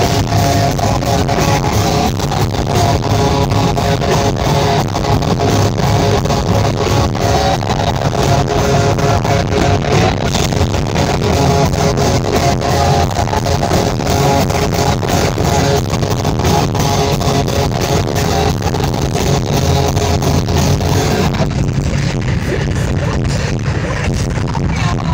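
Live band music played loud through the venue sound system, with electric guitar over a steady beat. The upper range thins out near the end.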